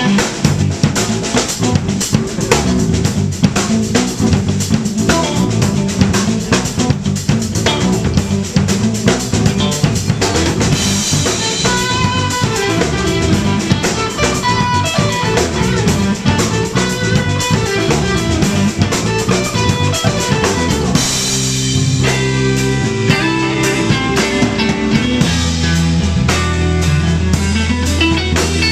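Live instrumental rock played by a trio of electric guitar, electric bass and drum kit, the drums busy on snare, bass drum and cymbals. About three-quarters of the way through, the drumming thins out under longer held bass and guitar notes.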